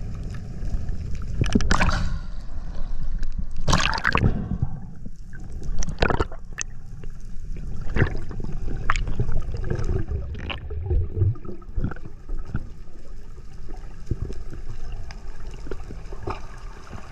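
Underwater camera audio: a steady low rumble of moving water with gurgling bubble surges, the loudest about 2 and 4 seconds in, and a scattering of sharp clicks after that.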